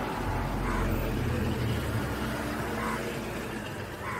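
Low rumble of a motor vehicle passing by, swelling in the first couple of seconds and fading away near the end.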